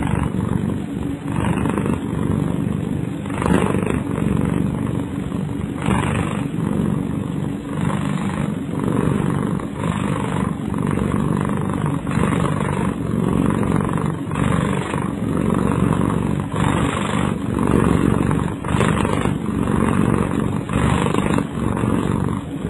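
Domestic cat snoring in its sleep: a steady low snore that swells with each breath, about every two seconds.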